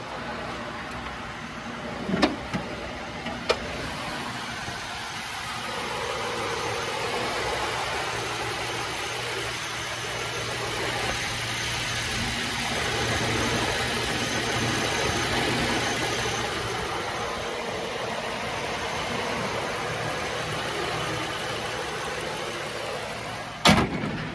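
Ford 6.8-litre V10 gas engine idling steadily with the hood open. A few sharp clicks come about two and three and a half seconds in, and a loud thud near the end as the hood is shut.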